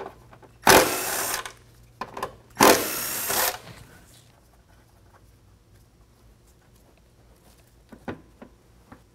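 Cordless impact driver run in two short bursts of just under a second each, about two seconds apart, backing out the factory bolts from the truck's rocker panel. Near the end come a few light metal clicks as a bracket is set in place.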